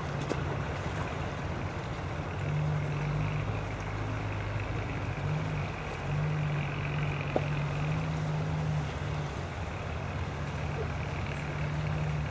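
A 4x4 vehicle's engine running steadily at low revs, with its pitch lifting slightly a couple of times.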